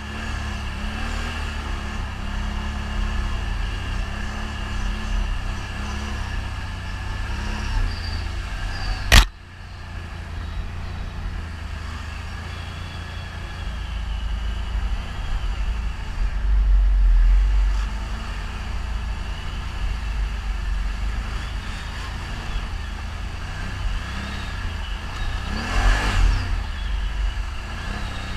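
ATV engine running under way, with a steady low rumble. A sharp click comes about nine seconds in, where the sound changes abruptly.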